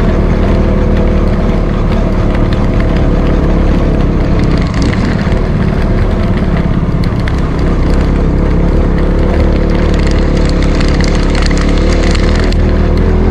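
Motorcycle engine running steadily at an even speed while riding, with road and wind noise over it.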